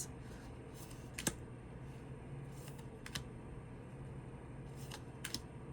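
A few scattered light clicks and taps of tarot cards being handled and flipped through, over a low steady hum.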